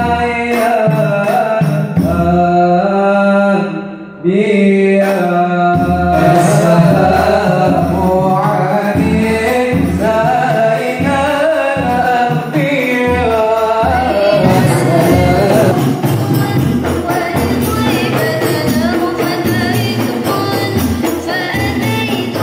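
A group of young men singing an Islamic devotional song, with a lead voice and hand-played frame drums and large hajir drums. There is a brief dip about four seconds in, then the drumming and singing grow fuller and busier.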